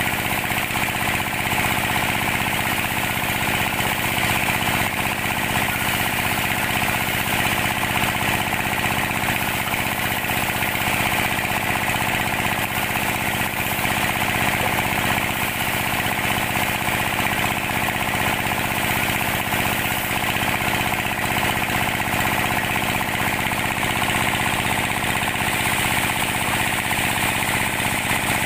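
Band sawmill running continuously as it cuts jabon logs into boards, a steady, unbroken machine noise that stays at the same level throughout.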